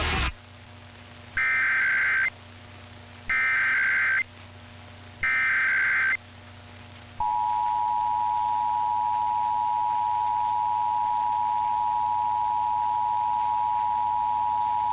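Emergency Alert System SAME header: three bursts of warbling data tones about a second each, then the two-tone EAS attention signal comes on about seven seconds in and holds steady. Together they mark the start of an EAS message, here a station's required weekly test.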